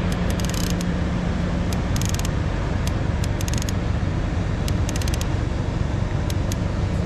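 Steady low rumble of a boat's engine running, under water and wind noise; a low hum in it drops away about two seconds in.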